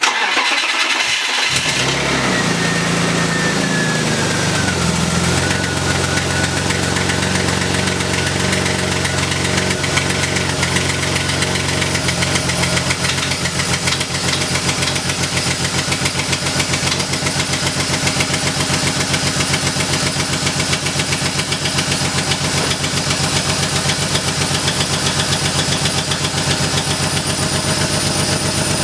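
BMW E36 engine cranking and catching about a second and a half in, its note falling over the first few seconds and settling into a steady, loud idle. The exhaust is still leaking, which the owner puts down to the header bolts not yet being tightened.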